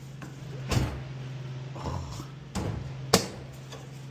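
Putty knife prying at a dryer's plastic panel: a knock about three-quarters of a second in and a sharp snap about three seconds in, over a steady low hum.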